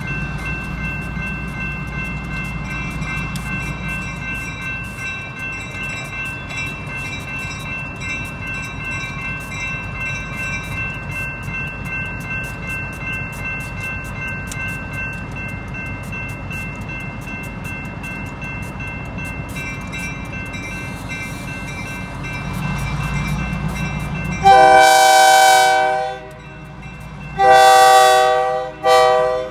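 Grade-crossing warning bell ringing steadily over the low rumble of two EMD GP15-1 diesel locomotives as they approach. About 24 seconds in, the lead unit's Nathan K3LA five-chime air horn sounds two long blasts, and a third begins at the very end.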